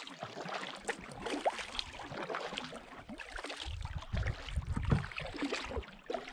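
Aquabound Sting Ray carbon double-blade paddle stroking through lake water from a canoe: irregular splashes and drips off the blades, with a low rumble over the second half.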